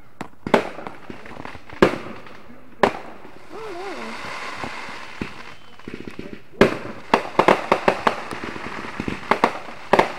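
Fireworks going off: three sharp bangs about a second apart, a stretch of crackling, then a rapid run of reports in the second half.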